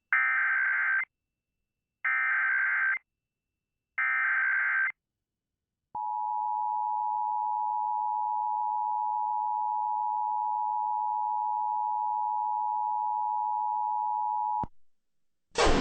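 Emergency Alert System SAME header: three one-second bursts of screeching digital data, about two seconds apart, followed by the steady two-tone EAS attention signal held for about nine seconds. It signals the start of an AMBER Alert activation.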